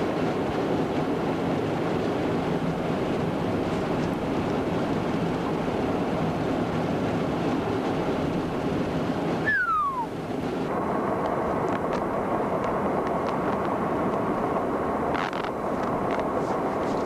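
Steady rush of road and wind noise from a moving chase vehicle. About ten seconds in there is a short falling whistle, and after it a faint steady hum carries on under the noise.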